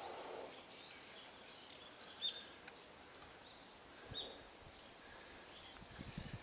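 Small birds chirping over a faint outdoor background. Two short, sharp high chirps stand out about two and four seconds in, with fainter chirps between them, and a few low thumps come near the end.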